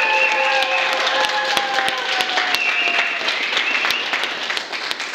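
Audience applauding, with held cheering voices over the clapping for the first few seconds; the applause thins out near the end.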